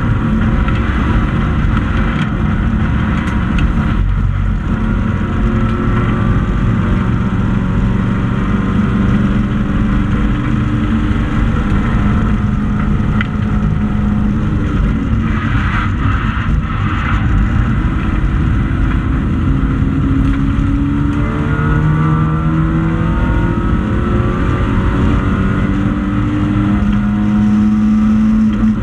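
Racing hatchback's engine, loud inside the stripped cockpit at race speed, its pitch rising and falling as it is driven hard, with several climbing revs through the gears in the second half. A short burst of rougher noise comes around the middle.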